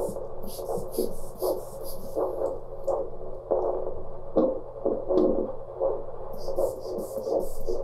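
Handheld vascular Doppler sounding the brachial artery's pulse as a rhythmic whooshing beat, about one and a half beats a second. Quick hissing strokes from the hand bulb inflating the blood pressure cuff come near the start and again near the end.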